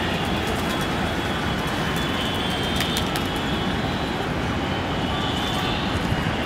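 Steady din of city traffic heard from high above: a continuous rumbling hiss with faint high tones running through it.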